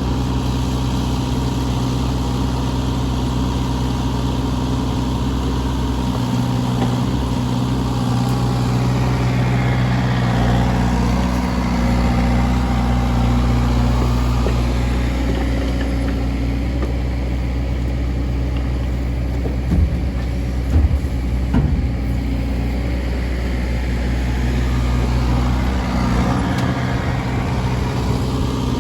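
Kubota mini digger's diesel engine running steadily as it works a rotator log grab, its note shifting slightly with the hydraulic load. A few short knocks about two-thirds of the way through.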